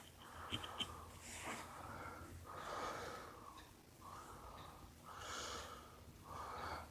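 Faint breathing close to the microphone: a series of soft breaths, in and out, about one each second.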